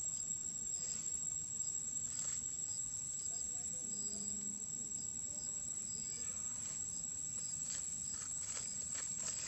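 Steady high-pitched drone of insects, with a fainter chirp repeating underneath and a few soft clicks in the second half.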